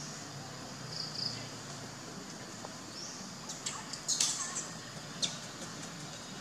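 Birds chirping in scattered short, high-pitched calls: a quick pair of notes about a second in, then a cluster of sharp chirps around four seconds in and a single one a second later.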